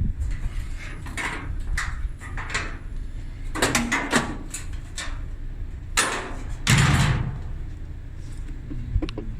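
Sheet-metal dryer panels scraping, sliding and knocking as they are handled during disassembly: a series of separate scrapes, the loudest about seven seconds in.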